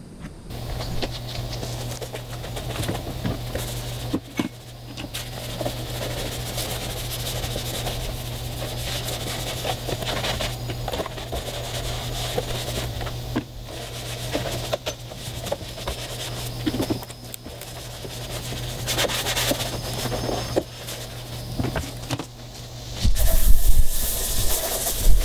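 Stiff brush scrubbing a boat's PVC rub rail with soapy water, in irregular scraping strokes over a steady low hum. A louder rush of noise comes in near the end.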